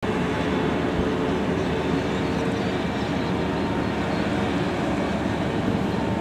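Steady low mechanical rumble with a faint unchanging hum, like distant engines or traffic.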